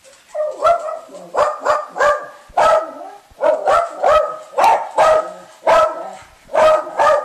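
Small fluffy dog barking repeatedly, about two barks a second, up at a person it has found hiding on top of the washing machine.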